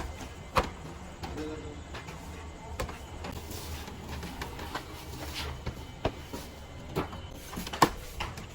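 Kitchen clatter: scattered sharp knocks and clinks over a steady low hum.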